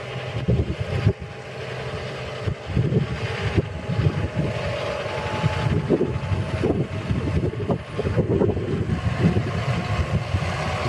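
John Deere 7215R tractor's 6.8-litre six-cylinder turbo diesel running steadily, with wind buffeting the microphone.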